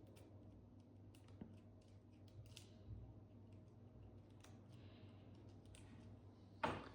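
Faint, scattered small clicks of a lock-opening tool working in a safe lock as it is turned, with a louder knock near the end.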